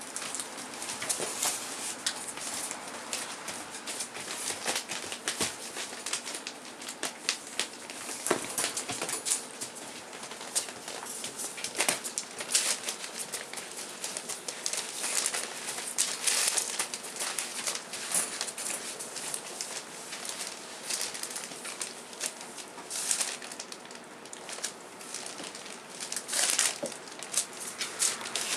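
Newspaper rustling and crinkling in irregular, crisp bursts as rough collie puppies walk, paw and chew a towel on it.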